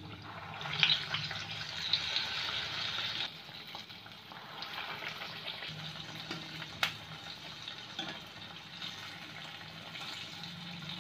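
Urad dal vadas deep-frying in hot oil: steady sizzling, louder for the first few seconds after a fresh ball of batter drops in. A single sharp click about seven seconds in, as a slotted metal skimmer turns the vadas.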